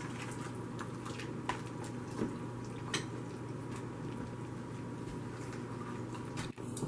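Wet cornbread dressing mix, soaked with chicken broth, being stirred in a plastic bowl: soft squelching, scraping strokes about a second apart. A steady low hum runs under it.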